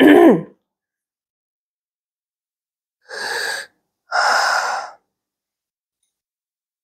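A woman taking two deep, audible breaths, a shorter one about three seconds in and a longer, louder one just after.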